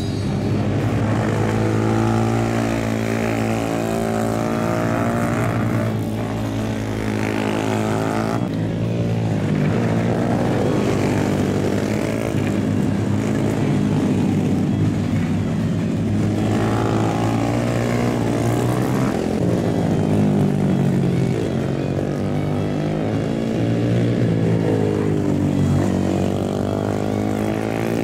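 Honda Grom mini bikes' single-cylinder four-stroke engines running hard on a race circuit. Several bikes pass at once, and from about eight seconds in the engine note rises and falls as they go by and change revs.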